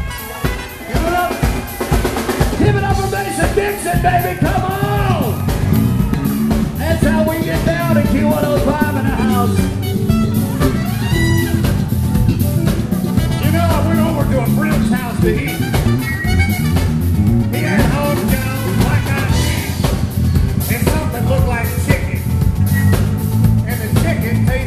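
Live funk band playing loudly: drum kit keeping a steady beat under bass and electric guitar, with a bending melody line on top.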